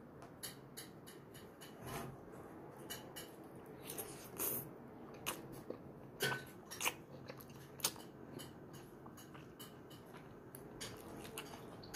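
Close eating sounds: noodles being slurped in and chewed, with an irregular scatter of short clicks and smacks.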